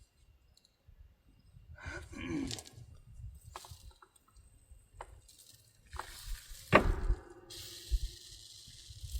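Hands handling a grain probe sampler and its grain sample: scattered clicks and light knocks, with one sharp knock about seven seconds in, followed by a steady hissing rustle.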